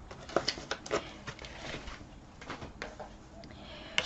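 Hands handling ribbon and paper on a craft table: scattered light taps and rustles, with a sharper click near the end.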